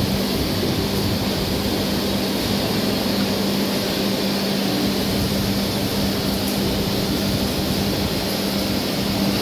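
Steady machine drone with a constant low hum, unchanging throughout.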